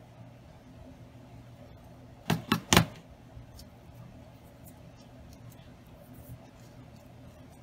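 Three quick hard knocks in a row, about two seconds in, as a hot glue gun is set down on a plastic cutting mat, over a faint steady hum.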